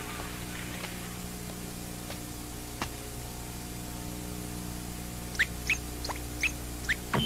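Low steady hum, then in the last two seconds about six quick chirping electronic beeps as buttons on a keypad are pressed, with a steady beep starting right at the end.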